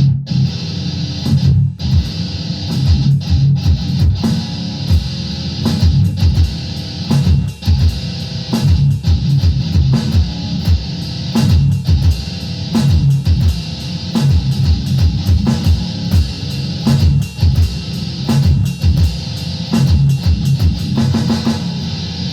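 Electric guitar playing a rock song riff of quick, rhythmic picked notes, a section meant to come after the chorus.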